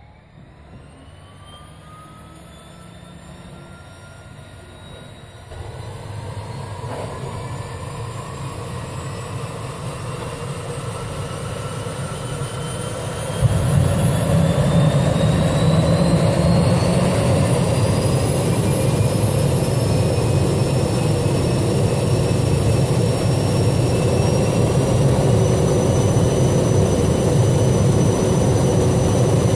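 Turboprop engine of a crop-spraying plane starting up. A whine rises in pitch as it spools up, the sound steps up about five seconds in, and it jumps sharply louder with a deep rumble about thirteen seconds in. It then settles into a steady high turbine whine.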